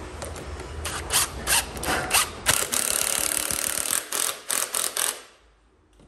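Cordless drill driving wood screws through a pine strip into the bottom edge of a door: a few short trigger bursts, a longer steady run in the middle, then quick bursts, stopping about five seconds in.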